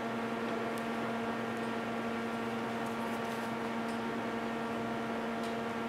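Steady electrical hum, one low buzzing tone with its overtones over a hiss, with a couple of faint ticks.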